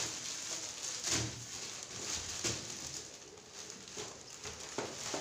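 Plastic packaging rustling and crinkling as a gift shirt is unwrapped by hand, with a few sharper crackles.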